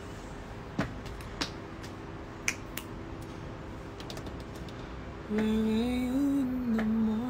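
A man humming a slow tune with closed lips, starting about five seconds in, his pitch stepping up and down. Before that, a steady low background hum with a few sharp clicks.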